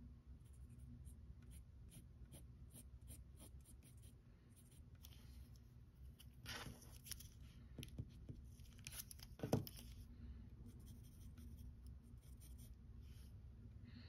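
Faint pencil strokes on paper: short, scattered scratches, with a longer scrape about halfway through and a soft knock a few seconds later.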